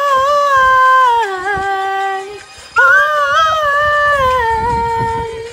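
A woman singing two long held notes without words, the pitch bending and sliding in places, with a short break between them.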